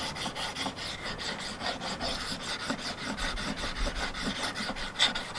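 Mora Companion knife's Scandi bevel scraping back and forth on a small Fallkniven DC4 pocket sharpening stone in quick, even strokes. This is a dull edge being properly resharpened, with the bevel laid flat on the stone.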